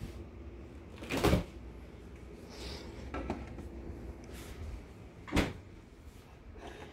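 Refrigerator door being opened and shut: two loud knocks about four seconds apart, with lighter clicks of a can and containers being handled in between.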